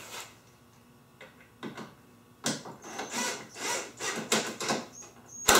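Bolt being tightened on a UTV's frame with a hand wrench: a string of uneven scraping strokes starting a couple of seconds in, then a sharp metallic knock near the end.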